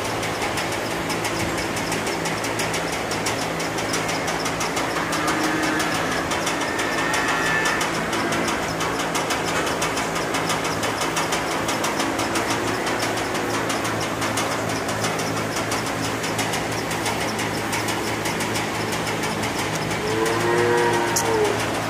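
Hanging barn mixing fans running with a steady hum and whir. Calves bawl now and then, loudest near the end.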